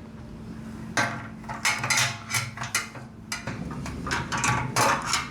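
A wrench clinking and scraping against a fitting in quick irregular metal clicks as the fitting is tightened down onto a plastic jerry can fuel tank.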